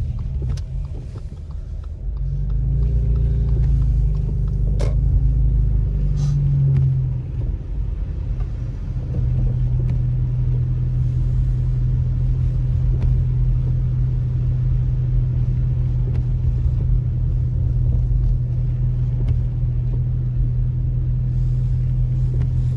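Car driving slowly on a snow-covered road, heard from inside the cabin: a continuous low engine and tyre rumble with a steady drone, swelling for a few seconds near the start before settling to an even level. A few faint clicks come over the top.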